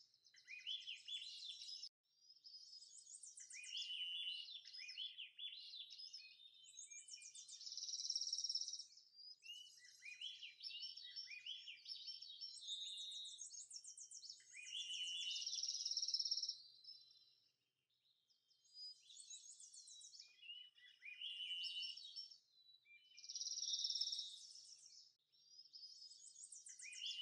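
Songbirds singing: high, repeated phrases of buzzy trills and quick falling notes, one after another.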